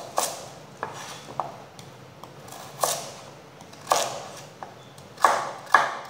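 Chef's knife cutting a carrot on a plastic cutting board: irregular sharp knocks of the blade striking the board, the loudest two near the end.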